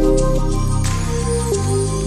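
Background music: soft new-age style music with sustained tones, the chord changing about one and a half seconds in.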